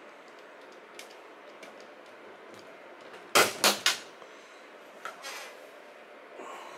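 Plastic hard-drive enclosure parts clicking as the drive and case are pried and pressed apart: a few light ticks, then three sharp snaps in quick succession about halfway through, and a softer click or two a second later.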